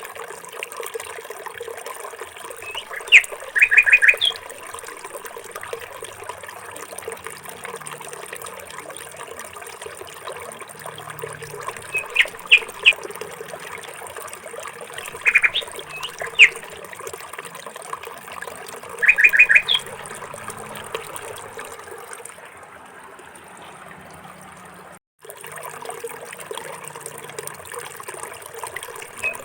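Small birds chirping in short clusters of two to four quick high notes every few seconds, over a steady trickle of running water. The sound drops out for a moment near the end.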